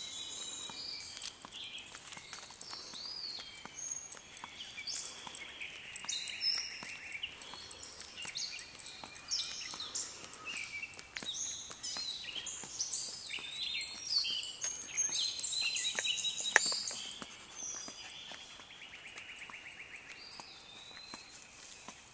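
Several wild songbirds singing and calling at once: many short chirps and whistles overlapping, with a few longer buzzy trills. A single sharp knock stands out about three-quarters of the way through.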